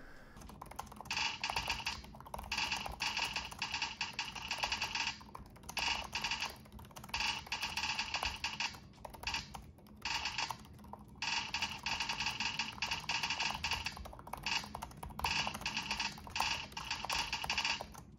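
Fast typing on an Acer Swift 3 laptop keyboard: quick runs of key clicks broken every second or two by short pauses.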